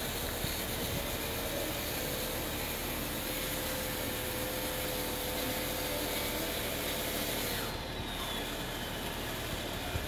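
RC hydraulic bulldozer crawling on its tracks, its motors and hydraulic pump giving a steady whine over a grinding rub of the tracks on dirt; the whine stops about three-quarters of the way through.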